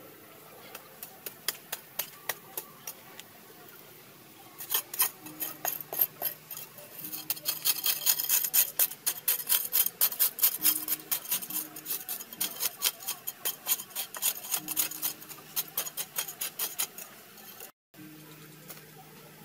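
Metal hoe blade scraping and chopping into dry, gritty soil in quick repeated strokes, a few scattered at first and then fast and dense for most of the middle. It cuts out briefly near the end and gives way to lighter scraping.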